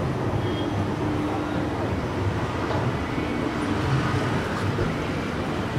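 Moving escalator running with a steady low rumble and hum, among the ambient din of the station, with faint voices in the background.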